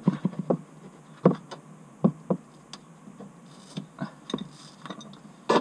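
Scattered light clicks and knocks at irregular intervals, a dozen or so, from hands working at the metal underside of the car and its plastic trim.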